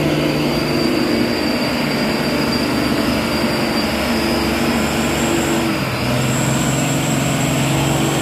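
Hino 500 dump truck's diesel engine working hard as the truck pulls up a slippery mud slope, its note stepping slightly lower about six seconds in, with a thin high whine over it.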